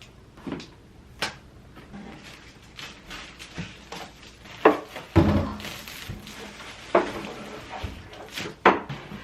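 Kitchen handling sounds: dishes and containers clink and knock as they are picked up and set down, in a string of separate sharp knocks, the loudest in the second half.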